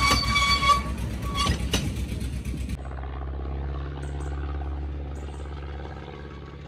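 Narrow-gauge passenger coaches rolling past close by, the wheels clattering over the rail joints with a steady high squeal. After about three seconds the sound drops abruptly to the steady low hum of a small diesel locomotive running in the distance.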